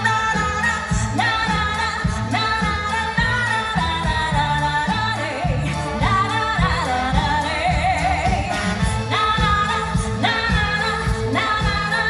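A woman singing a song with an orchestra of strings and brass, over a steady bass beat.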